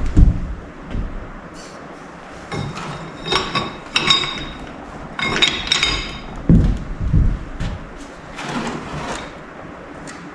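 Metal transmission parts being handled on a bench: a heavy thump near the start, then a string of ringing metallic clinks and knocks, with two more low thumps a little past the middle.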